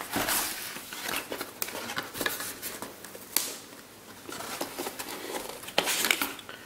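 A cardboard box being opened and its packaging handled: irregular rustling and scraping with a few sharp clicks.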